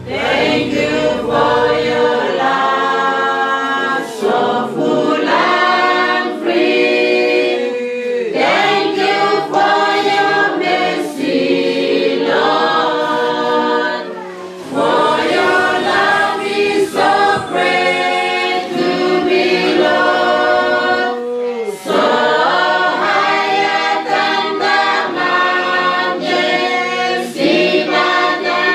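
A choir singing unaccompanied, in phrases of several seconds with brief pauses between them.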